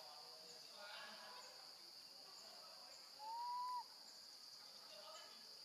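A baby monkey gives one clear, whistle-like call about three seconds in, rising and then holding its pitch for about half a second, a call for its absent mother. A steady high drone of insects runs underneath.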